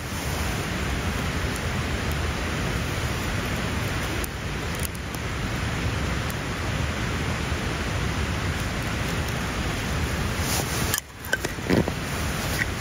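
Steady rushing noise, with a short lull about eleven seconds in.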